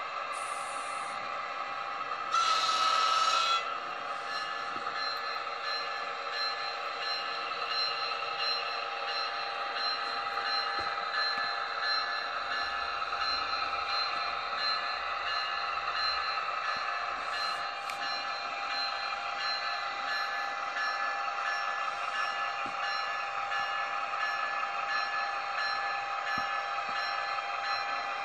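HO scale Atlas ALP-45DP model locomotive running along the track with a steady whine made of several held tones. A louder, hissier burst comes in about two seconds in and lasts just over a second.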